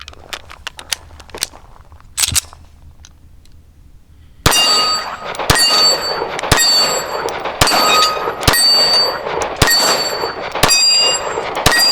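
Ruger Security-380 pistol firing aluminum-cased .380 rounds at steel plates, about one shot a second starting some four seconds in. Each shot is followed by the ringing clang of the steel plate it hits. Before the shooting there are a few faint clicks.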